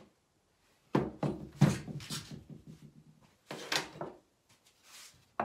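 A series of knocks and thuds of wood and a cordless drill being handled and set down on a wooden workbench: a cluster of knocks about a second in, then a couple more near four seconds.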